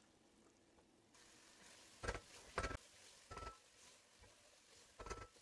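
A wooden spatula stirring chicken in masala in a granite-coated pot: about four short scrapes and knocks against the pot, each with a brief ring, over a faint sizzle that starts about a second in.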